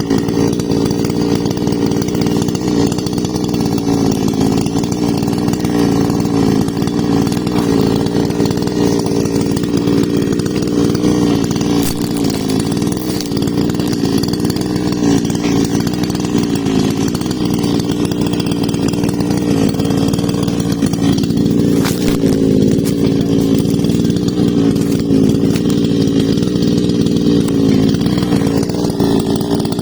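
Husqvarna chainsaw running steadily without letting up, cutting into a big tree.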